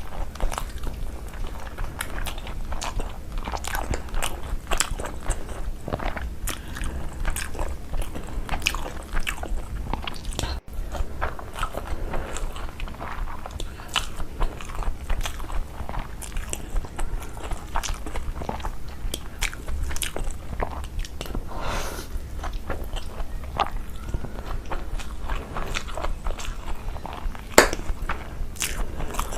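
Close-up mukbang-style eating: a person chewing and biting food, with crunching and many small wet clicks and crackles of the mouth, over a steady low hum. One louder, sharper click comes near the end.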